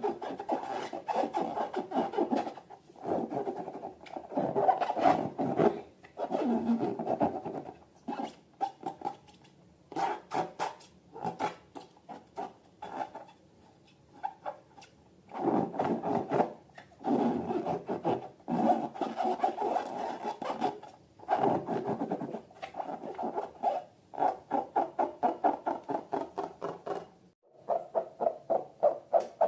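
Slime being squeezed and worked by hand, crackling and clicking in bursts of a second or two with short pauses between.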